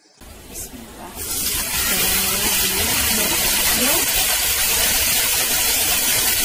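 Marinated chicken breast sizzling loudly in hot oil and ghee in a nonstick frying pan. The sizzle swells in about a second in and then holds steady.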